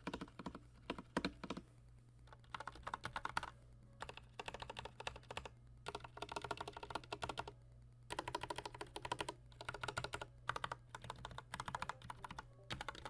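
Typing on an IQUNIX L80 hot-swappable mechanical keyboard fitted with Cherry MX Red linear switches: fast runs of keystroke clacks in bursts of a second or two, with short pauses between. A steady low hum runs underneath.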